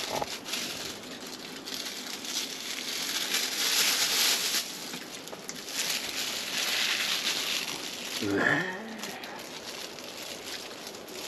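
Heavy rain drumming on a camper van's roof and walls, swelling louder twice in the middle. About eight seconds in comes one short, pitched vocal sound.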